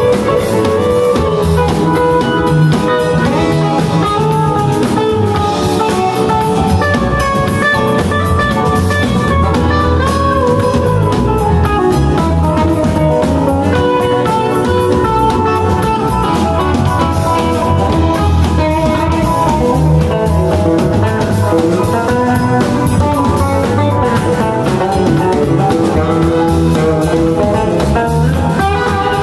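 Live band playing loud and steady: electric guitars and keyboard over a drum kit.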